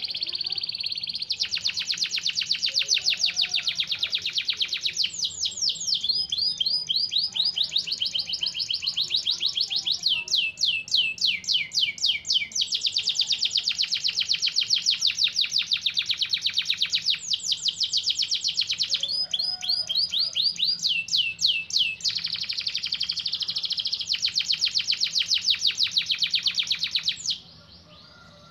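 Domestic canary singing a long, unbroken song of rapid trills. It switches from one fast repeated phrase to the next every one to three seconds, and some phrases sweep up and down in pitch. The song stops abruptly near the end.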